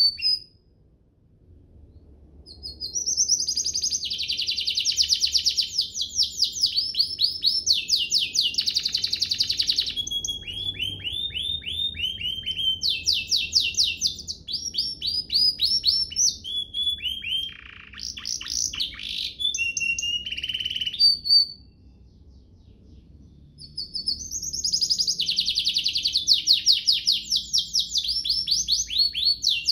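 Domestic canary singing long phrases of rapid trills, fast runs of repeated notes, with two brief pauses.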